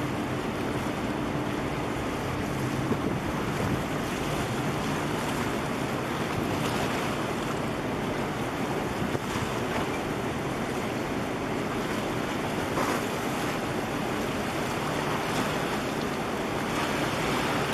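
Steady wind rushing on the microphone over lapping harbour water, with a faint low engine hum in the first few seconds.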